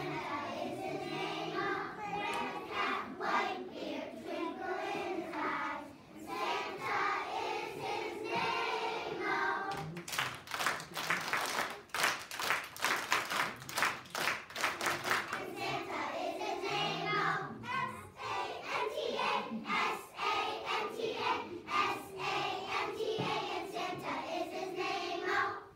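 Young children's choir singing a song together, with rhythmic hand clapping to the beat through much of it.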